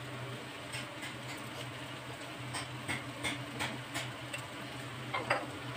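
Wooden spatula and spoon clicking and scraping against a nonstick frying pan while a jackfruit masala is stirred and spiced: a run of light, irregular ticks, then a louder scrape a little after five seconds, over a faint low hum.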